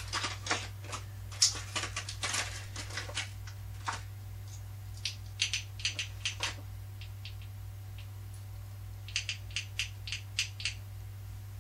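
Plastic toy packaging crackling and clicking as it is pried open, then small hard-plastic action figures clicking as they are handled. The clicks come thick in the first few seconds, sparser around the middle, and in a quick run near the end, over a steady low hum.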